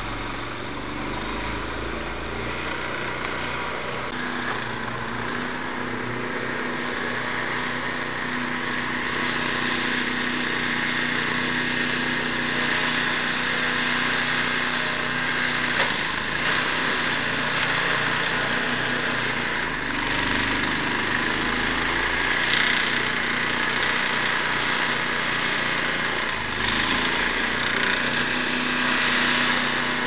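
Two-stage snowblower's small gasoline engine running steadily under load as it clears snow, growing a little louder about ten seconds in.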